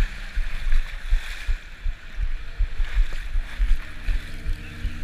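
Surf and wind buffeting an action camera's microphone at the waterline in irregular low rumbles, with a rubber dinghy's outboard motor humming steadily from about three and a half seconds in.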